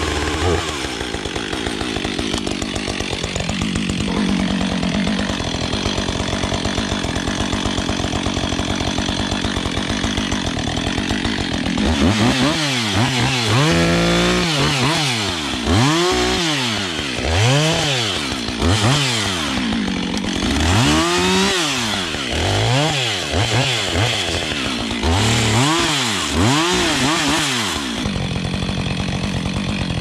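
Gas chainsaw idling for about twelve seconds, then revved up and let down about ten times, roughly every second and a half, while limbing branches off a felled pine. It settles back to idle near the end.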